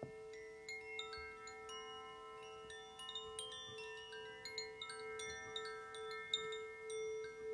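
A crystal singing bowl holds a steady low ring while tuned chimes are struck again and again over it. Their bright notes ring on and overlap, growing busier about halfway through.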